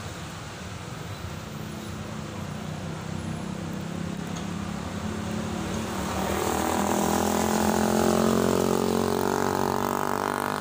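A motor vehicle drives past close by on the road, its engine growing louder to a peak after about eight seconds. The sound cuts off suddenly near the end.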